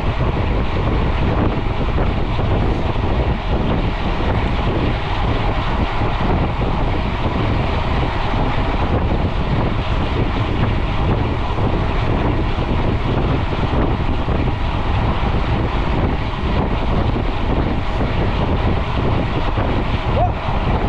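Steady wind noise rushing over a GoPro's microphone on a mountain bike riding at speed on the road.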